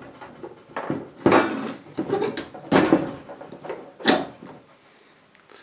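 The plastic and metal parts of a cassette deck's piano-key transport mechanism rattling and knocking as it is pulled apart by hand: several sharp clacks with some rattle between them, dying away near the end.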